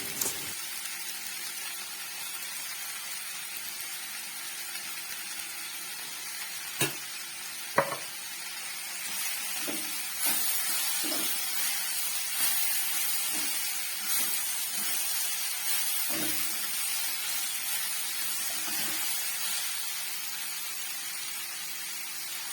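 Okra masala frying in a pan with a steady sizzle, stirred with a spoon in short strokes through the middle. Two sharp knocks stand out about seven and eight seconds in.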